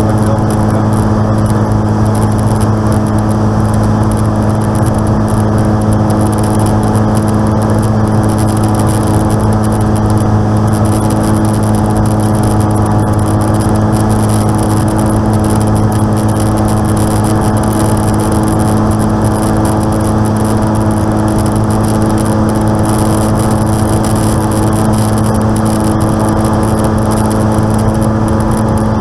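Light aircraft's piston engine running at a steady speed, an unchanging low drone with a stack of even tones. It is the engine noise that is in question after the fuel-injection spider was replaced.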